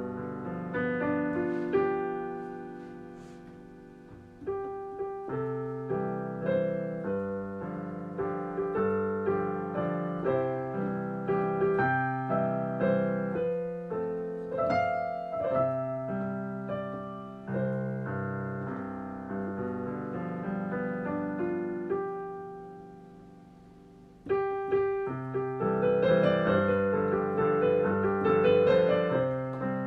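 Solo piano music, notes struck and left ringing. The playing fades twice on a held chord, a few seconds in and again shortly before the end, and comes back louder each time.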